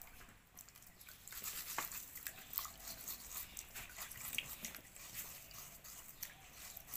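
Faint, irregular splashing and squishy rubbing as hands scrub soil off termite mushroom stems in a basin of water.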